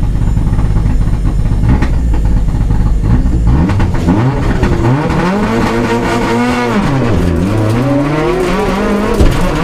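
Mitsubishi Lancer Evolution rally car's turbocharged four-cylinder engine, heard from inside the cabin. It sits at a steady rumble while waiting to start, then launches about four seconds in. The revs climb hard, drop at a gear change about seven seconds in, and climb again to another shift near the end.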